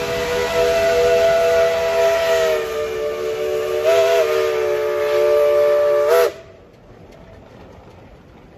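Steam locomotive chime whistle sounding one long chord of several notes. It dips slightly in pitch partway through, wavers briefly, then cuts off sharply a little over six seconds in. After it, only the quieter running noise of the passing locomotives remains.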